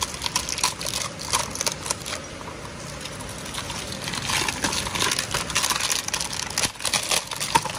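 Clear plastic wrapping crinkling and rustling as a stack of new clutch friction plates is unwrapped and handled by hand, with small irregular crackles and light clicks throughout.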